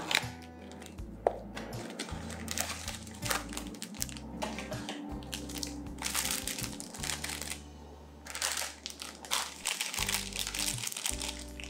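Plastic packaging of paper coffee filters crinkling as it is handled, over background music with a steady low bass line; one sharp click a little over a second in.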